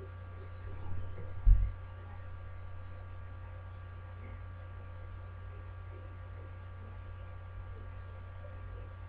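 Steady electrical mains hum with a faint steady whine above it, picked up by a webcam's microphone. A few light bumps and then one dull thump about a second and a half in come from the camera being handled and moved.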